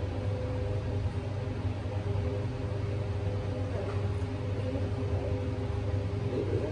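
Induction cooktop heating a large stainless-steel pot, humming steadily: a low drone with two faint steady higher tones over a fan-like hiss.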